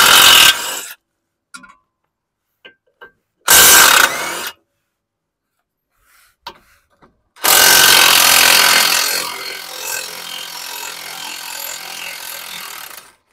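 DeWalt 20V cordless impact wrench hammering the ball joint nuts loose on a Toyota Camry's lower control arm, in three bursts: one at the start, one about three and a half seconds in, and a long one from about seven and a half seconds in that drops to a quieter run after a couple of seconds.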